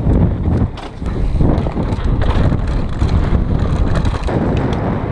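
Wind buffeting a mountain biker's action-camera microphone while the downhill bike runs fast over a dirt trail, with steady rattling and knocks from the bike over rough ground.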